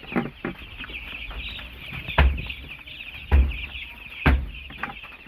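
A pen full of baby chicks peeping constantly in a dense, high chorus. Three loud thumps land about a second apart in the middle.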